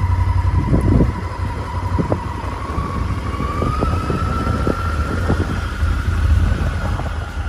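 Motorcycle riding along a road, heard from the rider's seat: a steady low engine rumble with wind buffeting the microphone. A thin whine runs through it and rises slightly in pitch about halfway through.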